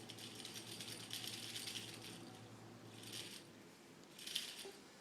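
Faint rattling and rustling, with two short, louder bursts about three and about four and a half seconds in.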